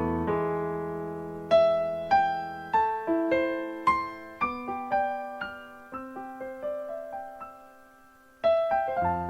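Background music: a slow, gentle piano melody of single notes that die away, fading almost to nothing before a new chord enters near the end.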